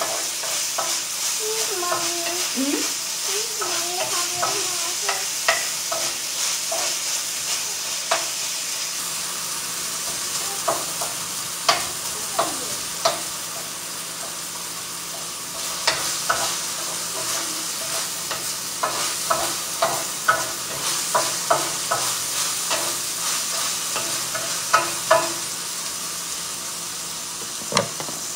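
Vegetables frying in olive oil in a pan, with a steady sizzle. A wooden spoon stirs them, clicking and knocking against the pan now and then, most often in the second half.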